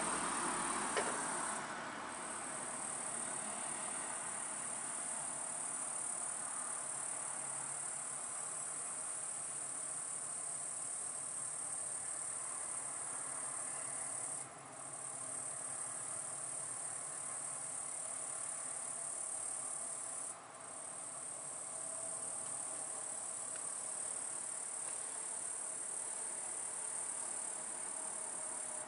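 Crickets trilling steadily in a high-pitched band, breaking off briefly three times, over a faint steady background hiss that is a little louder in the first couple of seconds.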